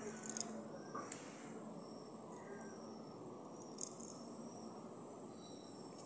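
Faint, steady high insect chirring, like crickets, with a few short light clicks and taps as the trap is handled over the dirt, the sharpest shortly after the start and again near four seconds in.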